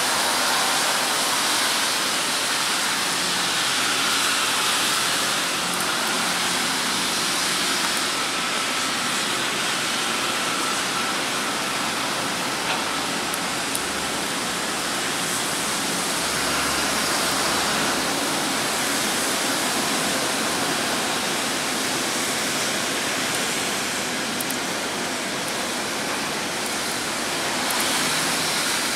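Steady hiss of rain and city traffic, with a Taipei Metro Wenhu line rubber-tyred train running along the elevated guideway and growing a little louder as it approaches near the end.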